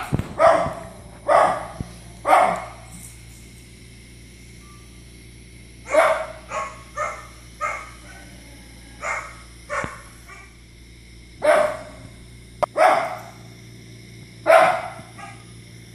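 Small dog barking in short, sharp barks: three in quick succession, a pause of about three seconds, then further barks in irregular groups.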